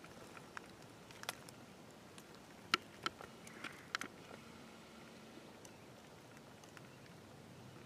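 Faint rustling of dry grass and brush with a handful of sharp clicks and crackles, bunched in the first four seconds and loudest a little under three seconds in, from a hunter creeping low behind a turkey fan.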